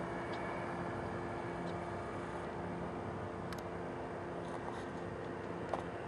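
Small engine of an ultralight aircraft droning steadily, with a sharp click about three and a half seconds in and another near the end.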